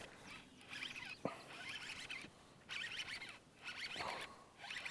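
Fishing reel being cranked in several short runs, a rapid zipper-like rasp, as a hooked smallmouth bass is reeled in; a single sharp click a little over a second in.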